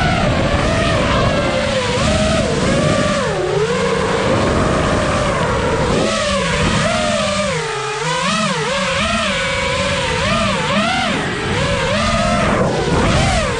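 FPV freestyle quadcopter's brushless motors and propellers whining, the pitch swooping up and down again and again as the throttle changes, with a deep dip about three seconds in.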